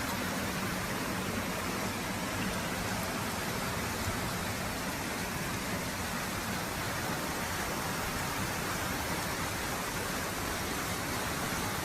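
Steady rush of water, an even hiss without separate splashes or knocks.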